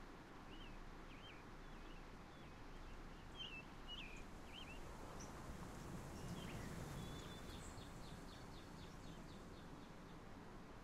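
Faint bird chirps over a steady background hiss. Scattered short chirps come in the first half, then a quick run of about ten short notes, roughly five a second, later on.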